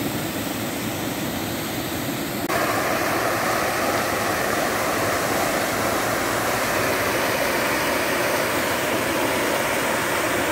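Water rushing from a burst drinking-water main, a steady loud rushing noise that becomes louder and brighter about two and a half seconds in.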